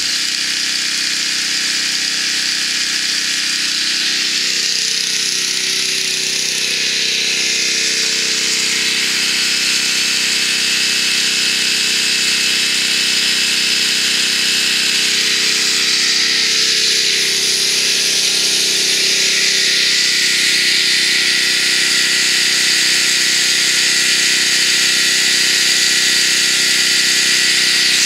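Troy-Bilt 5550-watt portable generator running steadily under its own engine, a loud, even drone with a strong exhaust hiss, reading about 93 to 94 dB on a meter 10 feet away.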